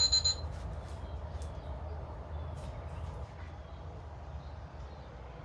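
A single high electronic beep right at the start, then a steady low outdoor rumble with faint short high chirps.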